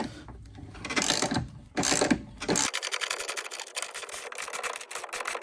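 A tool working the 22 mm top nut of a coilover, held by an Allen key in the shock shaft: a few short rattling bursts, then from about two and a half seconds in a steady, rapid mechanical rattle of clicks.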